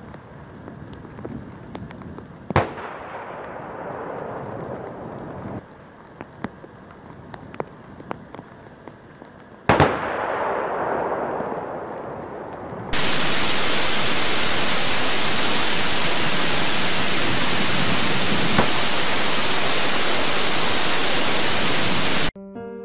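Two distant artillery shell explosions, a couple of seconds in and again about ten seconds in, each a sharp crack followed by a rumble that rolls away over several seconds. Then a loud, steady hiss like static, which cuts off suddenly near the end.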